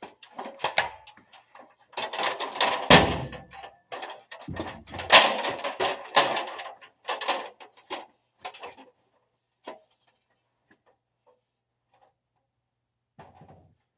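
Sheet-metal furnace parts being handled and forced: irregular clanks, knocks and scraping, with two heavy bangs about three and five seconds in, as the blower assembly is worked loose from the cabinet. It goes quiet for the last few seconds.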